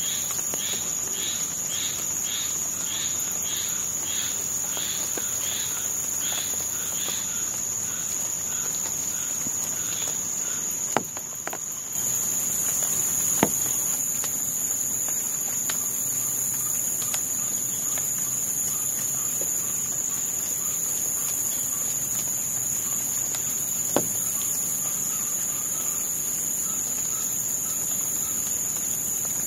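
Insects drone steadily at a high pitch in a swamp chorus. For the first several seconds an animal calls a series of evenly spaced notes, about two a second, and softer repeated notes return later. A few single sharp clicks stand out.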